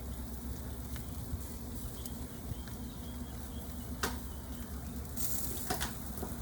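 Sauced barbecue chicken sizzling on a grill, with faint crackling, a sharp pop about four seconds in and a short louder hiss a second later.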